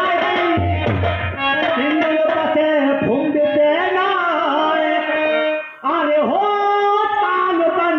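A man sings a dhola folk ballad, his voice sliding and wavering over steady held notes from a harmonium-like accompaniment, with hand-drum beats. The sound breaks off for a moment just before six seconds.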